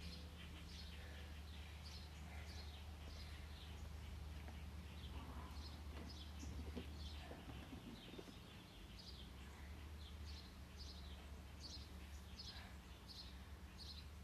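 Birds chirping, many short high chirps about one or two a second, over a steady low hum.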